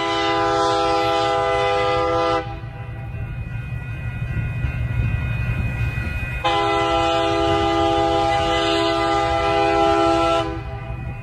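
A train horn sounding a chord of several notes in two long blasts, the first about two seconds long and the second about four seconds, starting about six seconds in, over a steady low rumble.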